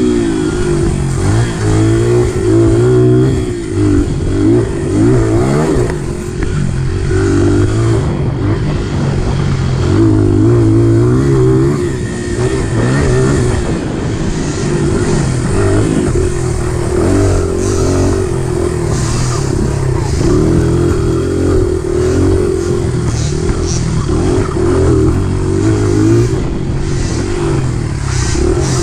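Youth peewee-class dirt bike engine ridden hard, its pitch rising and falling again and again as the throttle opens and closes over the rough trail.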